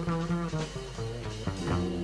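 Instrumental background music with guitar, in a jazz or swing style.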